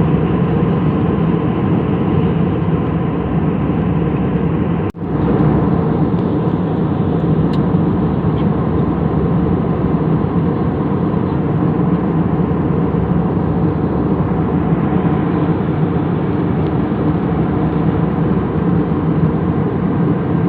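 Airliner cabin noise in flight: the steady, loud drone of the engines and rushing air heard from a passenger seat. The sound drops out for an instant about five seconds in, then carries on unchanged.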